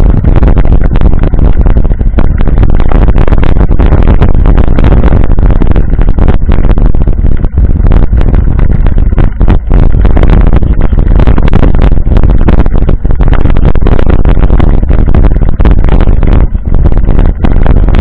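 Wind buffeting the microphone of a bike-mounted action camera, with constant rattling and knocks as the mountain bike rolls over a rough dirt road. The sound is loud and distorted throughout.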